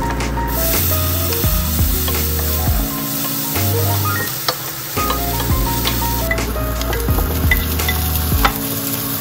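Chopped onion and garlic sizzling in melted butter in a frying pan, with a wooden spatula stirring and tapping against the pan, over background music.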